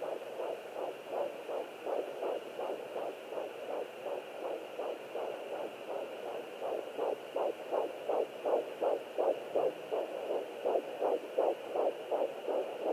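Heartbeat picked up by a Doppler or ultrasound monitor: fast, even whooshing pulses, about three a second. Whether the heartbeat is a baby's or the mother's own is unclear.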